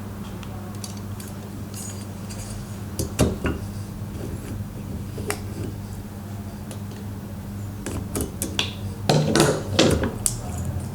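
Scattered light metallic clinks and knocks of engine parts being handled during top-end reassembly, busiest near the end, over a steady low hum.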